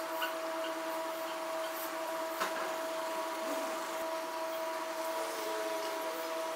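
A steady machine hum with a faint hiss, holding several unchanging tones, and one light tap about two and a half seconds in.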